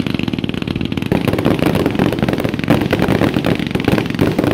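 Fireworks crackling: a fast, unbroken run of small pops with a few louder reports mixed in.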